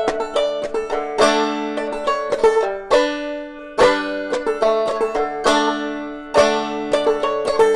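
Banjo played clawhammer style: a steady run of sharply plucked, ringing notes over sustained drone tones.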